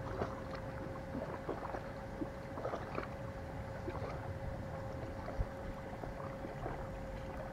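Outdoor ambience at the water's edge: a low rumble of wind on the microphone and small irregular lapping or ticking sounds, over a faint steady hum.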